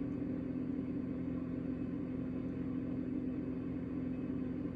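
A steady low hum with a constant pitch and its overtones, holding level without change.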